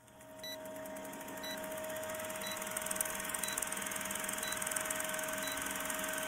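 Film projector running, with a fast, even mechanical clatter over a steady hum, fading in over the first two seconds. A short high beep sounds about once a second, in time with a film-leader countdown.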